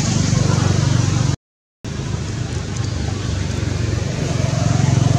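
Steady low hum of an engine running nearby, with no change in speed. It breaks off in a short gap of silence about a second and a half in.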